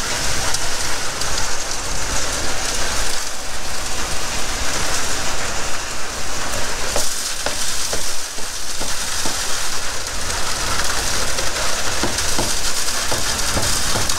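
Ready-mix concrete discharging from a concrete pumper truck's hose into a column footer, a steady rushing and rattling with a low rumble underneath and scattered knocks in the second half.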